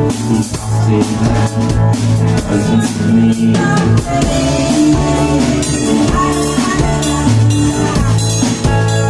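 Rock band playing an instrumental passage, with drum kit, electric guitar and bass and no vocals.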